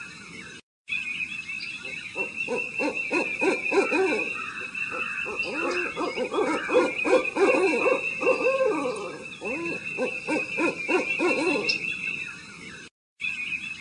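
Many short, low hooting bird calls in quick, overlapping succession, with a steady high-pitched whine behind them. The sound cuts out briefly just after the start and again near the end.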